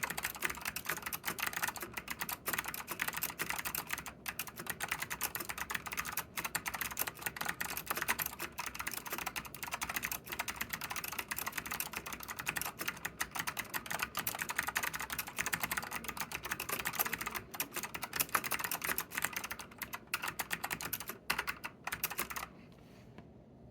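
Fast, continuous typing on a vintage NTC KB-6251EA keyboard with clicky Alps blue switches, a dense stream of sharp key clicks. The typing stops about a second before the end.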